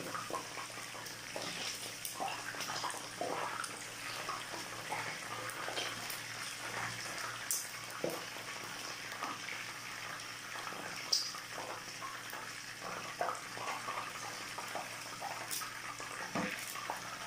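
Oil sizzling and crackling steadily in a frying pan where soy-marinated chicken pieces have been frying, with a few sharper clicks scattered through.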